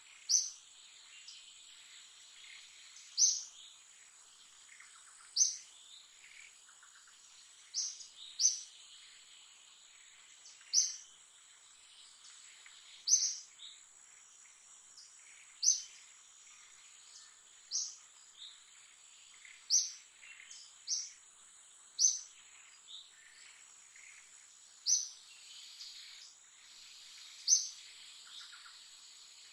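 A bird repeats one short, high call about every two to three seconds, over a steady high-pitched insect drone.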